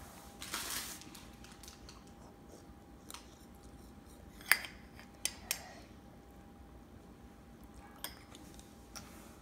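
Metal spoon clinking against a small stainless steel bowl several times, the loudest a sharp clink about four and a half seconds in, then two quicker ones soon after and lighter taps near the end.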